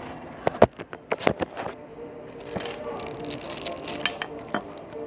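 Plastic packaging tray of a model airliner crinkling and clicking as the wing and engine parts are handled. A quick run of sharp clicks comes in the first two seconds, then lighter scattered rustling.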